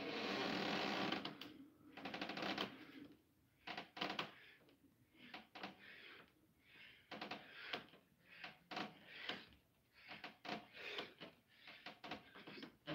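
A person breathing hard in short, rhythmic breaths, often in pairs, while doing pull-ups on a doorway pull-up bar. A louder burst of rustling comes at the start as he takes hold of the bar.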